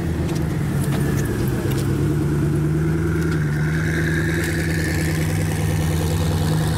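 Koenigsegg Agera's twin-turbo V8 running at low revs as the car moves off slowly, a steady deep engine note. There are a few sharp clicks about a second in.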